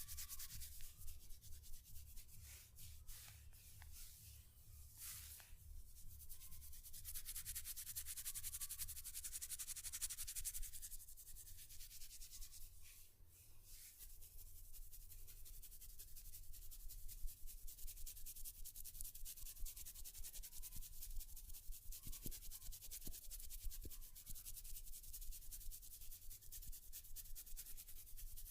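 Rubbing and scratching on hair and scalp during a head massage: a soft, uneven hiss that swells and fades, with a few light clicks.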